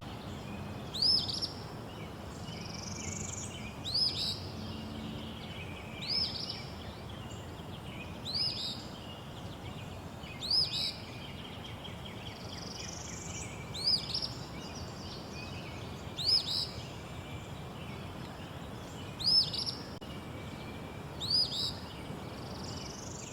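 Songbirds calling: short, sharp chirps repeated about every two seconds, with fainter rising notes between them, over a steady low background noise.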